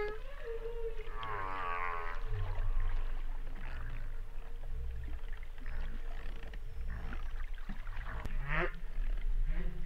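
Whale calls: one long held tone runs under warbling, wavering higher calls about a second in. Near the end a call sweeps up and then down, over a low steady rumble.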